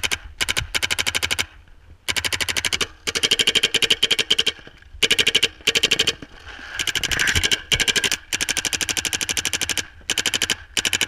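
Paintball markers firing rapid strings of shots, about a dozen a second, in repeated bursts separated by short pauses.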